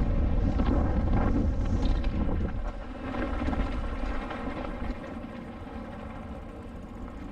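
Wind rushing over the microphone and rumbling noise as a mountain bike is ridden down a dirt trail, louder for the first two and a half seconds and then easing off.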